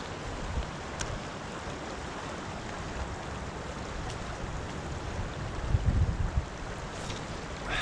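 River current rushing steadily, with wind buffeting the microphone about six seconds in.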